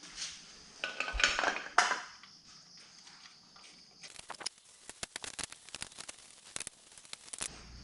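Metal motorcycle parts clinking and clattering as they are handled, followed about halfway through by a quick run of small sharp clicks.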